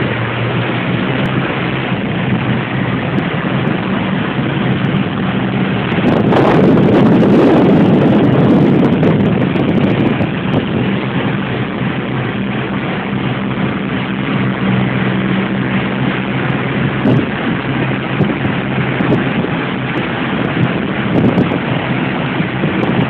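Motorboat under way: its engine drones steadily beneath the rush of water from the wake and wind buffeting the microphone. The rushing grows louder about six seconds in and eases off a few seconds later.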